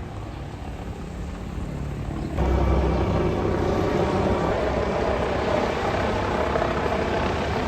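Helicopter flying overhead, its rotor and engine running steadily, growing abruptly louder about two and a half seconds in as it comes back over.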